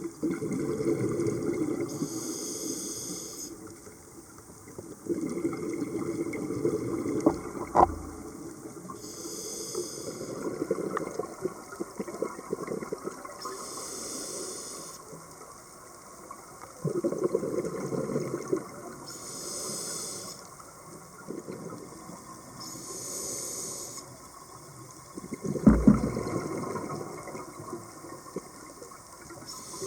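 Scuba diver breathing through a regulator underwater: a short hiss on each inhalation every few seconds, alternating with a low bubbling rumble on each exhalation. Two sharp knocks, about a quarter of the way in and near the end.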